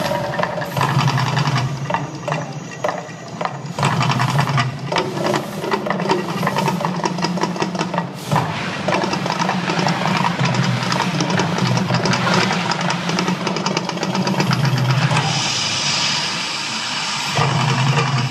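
The Mirage volcano show running: a loud, dense rumble from its soundtrack and effects, with a pulsing low throb, sharp hits, and a hissing rush about 16 seconds in.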